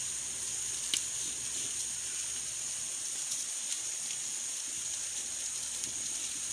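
Satay skewers sizzling over fanned charcoal: a steady, even hiss, with one light click about a second in as the skewers are turned.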